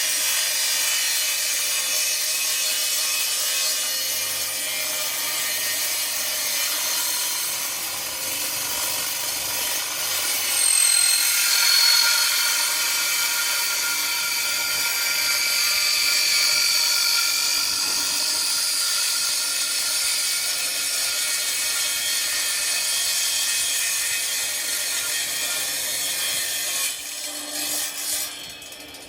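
A power tool cutting through aluminum: a steady, loud, high cutting noise with a shrill whine in the middle stretch. It breaks up and stops near the end.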